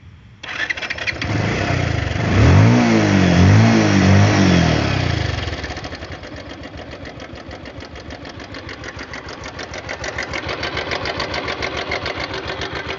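Bajaj Pulsar 150's single-cylinder engine starting about half a second in, revved up and down twice, then settling to an idle with a fast, even clatter that grows a little louder near the end. This is the strange, loud noise that the owner cannot identify and that engine repair work has not cured.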